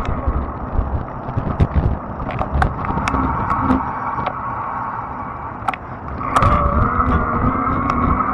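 Fat-tire e-bike's electric motor whining under power. The whine eases off partway through and comes back stronger, rising in pitch, about six seconds in as the bike climbs a ramp. Underneath runs a steady low rumble of wind and tyres, with several sharp clicks and rattles from the bike over bumps.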